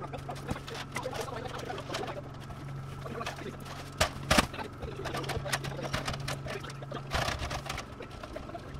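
Knocks and clatter of a ladder and building materials being handled against a wooden frame, with two sharp knocks about four seconds in, over a steady low hum.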